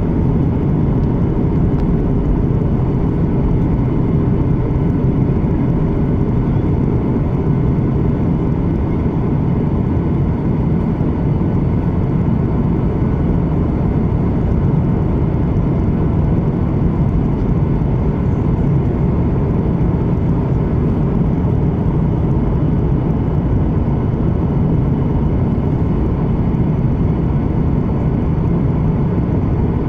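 Steady cabin noise of a Boeing 737-800 in descent, heard inside the cabin: a low, even rumble of its CFM56 engines and rushing airflow, with a faint steady hum above it.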